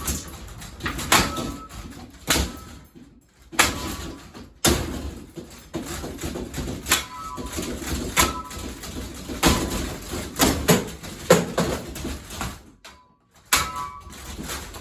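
Hugger ceiling fan being hit hard again and again, about a dozen heavy blows roughly a second apart, several leaving a brief metallic ring.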